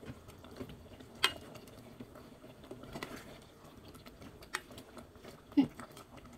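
A ladle stirring prawns in thick black pepper sauce in an aluminium rice-cooker pot, making a few light knocks and scrapes against the pot. The loudest knock comes about a second in.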